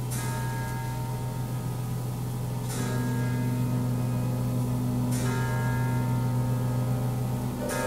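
Slow, evenly spaced bell strikes in orchestral music, about one every two and a half seconds, each left ringing, over a steady low hum.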